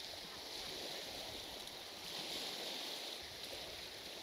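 Sea washing gently on the shore, a soft steady hiss that swells a little about two seconds in.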